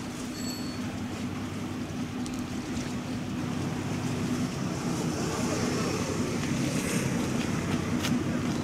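Steady low drone of a boat's diesel engine carried across open water, holding one pitch, with wind noise on the microphone and the wash of waves, growing slightly louder about halfway through.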